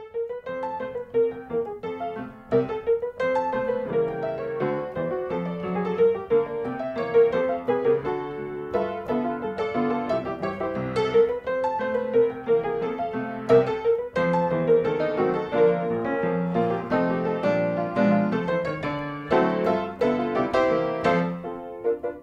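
Background piano music playing a busy, continuous stream of notes.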